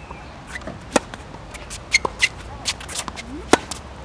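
Tennis balls struck by racquets and bouncing on a hard court: a string of sharp pops at irregular intervals, the loudest about a second in and again near the end.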